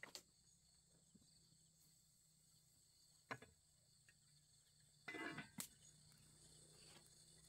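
Faint, steady high chirring of crickets. About five seconds in, a metal pot lid rattles and clinks as it is set onto a cooking pot, after a couple of soft knocks earlier on.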